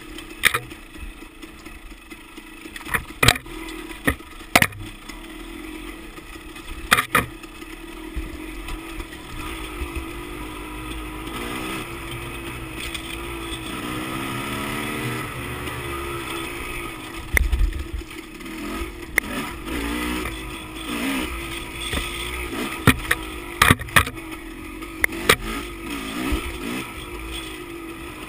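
Dirt bike engine running on a trail ride, its pitch rising and falling as the throttle opens and closes. Sharp knocks come now and then as the bike jolts over the rough trail.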